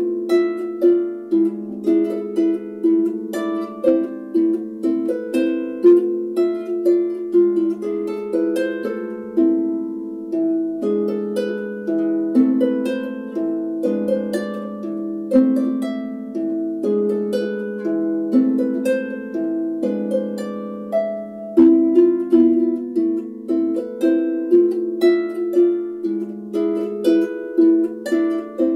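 A 27-string Camac Bardic harp played solo: a continuous stream of plucked notes, melody ringing over lower notes.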